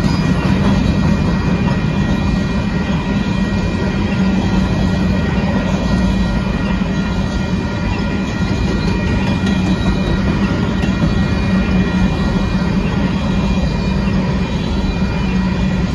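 Freight train of covered hopper cars rolling past a level crossing: a steady rumble of steel wheels on the rails, with thin steady high tones above it.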